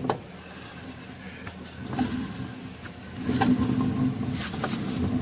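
Ford Windstar running with a steady low hum that grows louder about three seconds in. The noise comes from a wheel bearing the owner finds totally gone.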